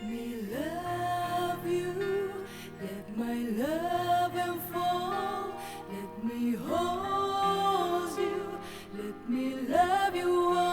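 Late-1970s pop record playing: a melody of long held notes, each sliding up into its pitch, over a steady backing.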